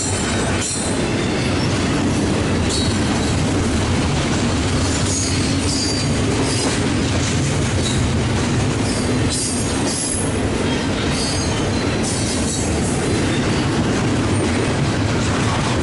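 Union Pacific double-stack intermodal freight cars rolling past close by: a steady rumble of steel wheels on the rails, with clicks from the wheels and brief high wheel squeals now and then.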